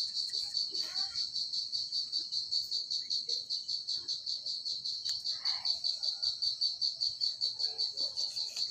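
A cricket chirping steadily in a fast, even pulse, several chirps a second.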